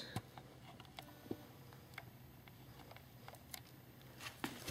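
Faint, scattered small clicks and taps of hand tools working at the exposed piston of a two-stroke bicycle engine during teardown, over quiet room tone with a low steady hum.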